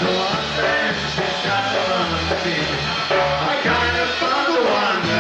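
Live polka band playing an instrumental passage, with a bass line pulsing on the beat under melody instruments.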